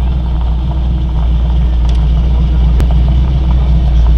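V8 engine of a Chevrolet Corvette C1 running at low speed as the car creeps forward: a deep steady rumble with a fast pulsing beat. One sharp click about three seconds in.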